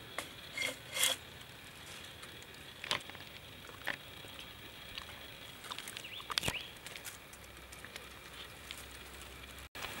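A handful of light knocks and clicks from bamboo pieces being handled and set down on dry leaves, over a faint steady hiss.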